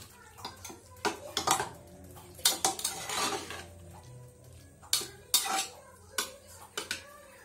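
Metal spoon stirring cooked papaya curry in a metal pressure cooker pot, making an irregular run of clinks and scrapes against the pot's sides and bottom.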